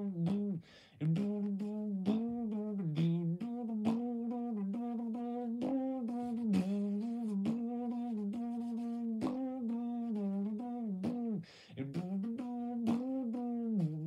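A person droning with the voice in imitation of a small tractor engine: a buzzing hum held mostly on one steady note, with quick dips in pitch and many mouth clicks. It breaks off briefly twice, about half a second in and again near the end.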